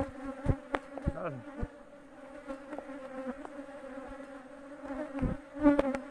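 Honeybees buzzing around the hive, a steady hum throughout. Over it come a series of sharp clicks and knocks as the plastic queen-cell protector cage is twisted and fitted, with the loudest knock near the end.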